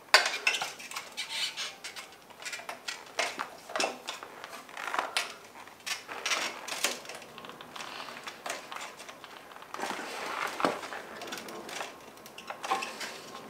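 Thin plastic bicycle mudguard, a Crud RoadRacer Mk3, being handled and fitted around the rear wheel: irregular clicks, taps and rustling as it knocks and rubs against the frame and tyre.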